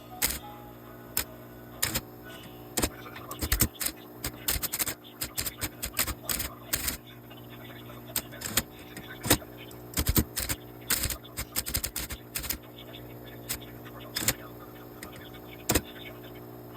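Typewriter keys striking one at a time, in uneven runs and single strokes with pauses between them, as when typing out a picture character by character. A steady low hum sits underneath.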